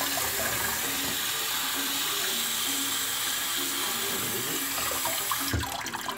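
Kitchen tap running onto a mackerel as it is rinsed and rubbed clean by hand in a sink: a steady splashing hiss of water. Near the end there is a dull thump and the running water stops.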